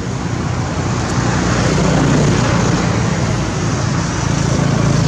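Steady, loud outdoor rumble and hiss, swelling slightly about two seconds in.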